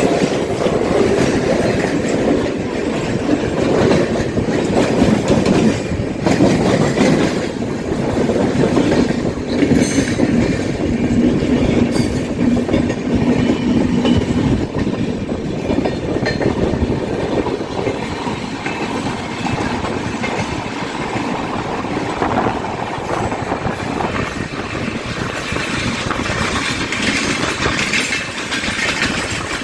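Mumbai suburban local train running at speed, heard from its open doorway: a steady, loud noise of steel wheels on the rails, with a second train running close alongside on the next track.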